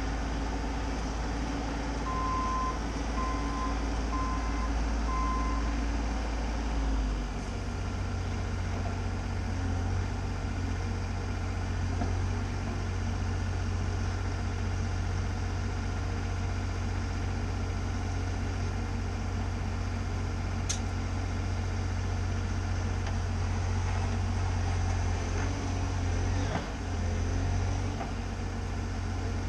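Bobcat mini-excavator's diesel engine running steadily, with a short run of evenly spaced beeps from its travel alarm early on. The engine note steps up about seven seconds in and holds there.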